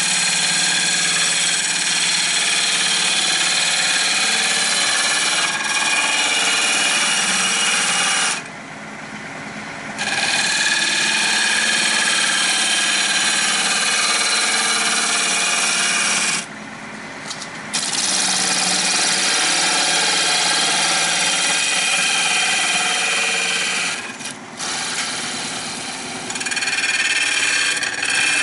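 Wood lathe spinning a redbud bowl blank while a turning gouge hollows out the inside: a loud, steady cutting hiss over the motor's whine. The cutting breaks off three times for a second or two, about 8, 16 and 24 seconds in, leaving the lathe running alone.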